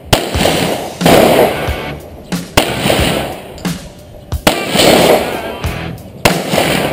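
Handgun shots fired in a slow string, about five sharp cracks a second or two apart, over background music.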